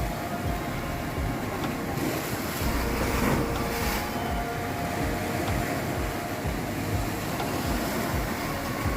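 Sea waves breaking and washing over rocks, with wind buffeting the microphone. One wave surges louder about three seconds in.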